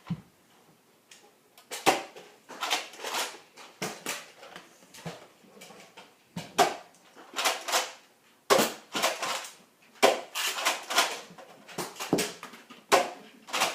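Irregular clacks and thuds in quick clusters during a Nerf foam-dart battle: spring blasters being primed and fired, with people moving about.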